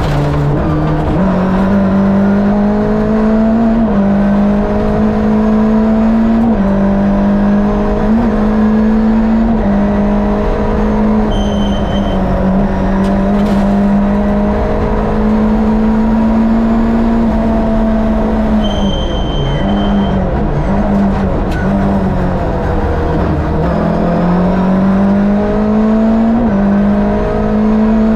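Lada VFTS rally prototype's Fiat 2-litre twin-cam eight-valve engine heard onboard, driven hard on a stage: revs climb and drop again and again through gear changes. There is a deeper drop in revs about two-thirds of the way through before it pulls hard again.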